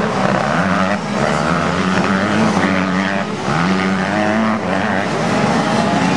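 85cc two-stroke motocross bike engine revving hard, its pitch dipping briefly a few times as the throttle is rolled off or a gear changes, then climbing again under acceleration.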